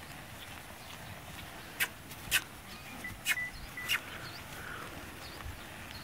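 Four sharp clicks spread over about two seconds, with a short thin high tone between the last two, over faint steady background noise.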